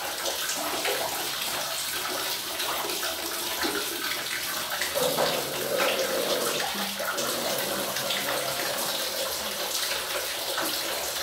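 Water running steadily and splashing onto a person and a hard floor while they wash in a small bathroom.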